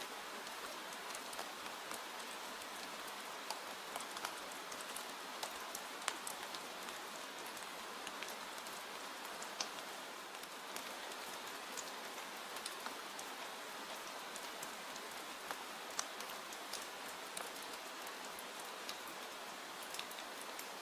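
Steady rain falling, an even hiss scattered with sharp, irregular ticks and pops.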